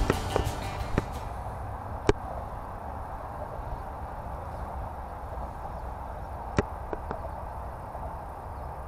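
Steady rustle of someone walking through tall grass, with a few sharp clicks, the loudest about two seconds in and two close together near the end.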